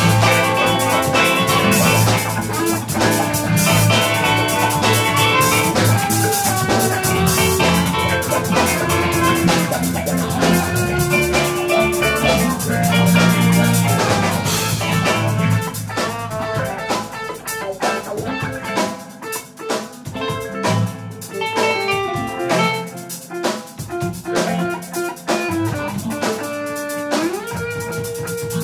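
Instrumental jazz-fusion band music with drum kit and guitar. The dense full band thins out about halfway through, and the bass drops away, leaving sparser, separate plucked and struck notes.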